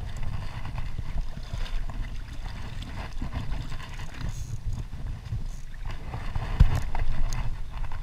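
Uneven low rumble of wind and movement noise on a body-worn camera's microphone, with a single thump about six and a half seconds in.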